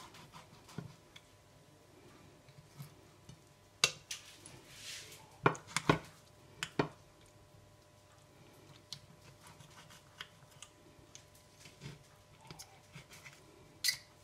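Knife and fork clinking and scraping against a plate while cutting soft cooked red peppers: scattered sharp clinks, a cluster of them between about four and seven seconds in, and one more near the end.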